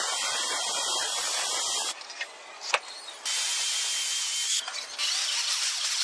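Power tools working steel: an abrasive cut-off saw grinding through a steel rod, then an electric drill boring into sheet metal. Both give a steady hiss with a faint high whine, broken by two short pauses about two and four and a half seconds in.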